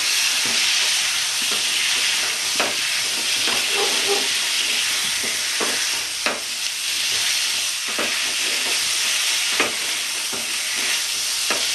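Spiced potatoes and chopped tomato sizzling in oil in a non-stick kadai, with a steady frying hiss and scattered knocks and scrapes as a wooden spatula stirs them round the pan. The sound of kashano: the potatoes being fried hard in the masala.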